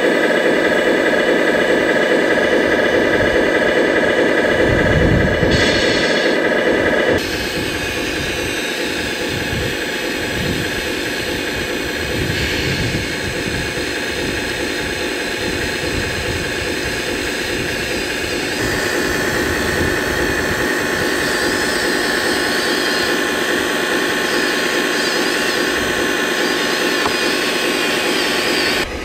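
Hydraulic pump whine of a 1/12-scale Earth Digger 4200XL RC excavator, an electric-driven pump powering its tracks and arm. It runs steadily, stepping down in pitch and level about seven seconds in and rising again a little past halfway.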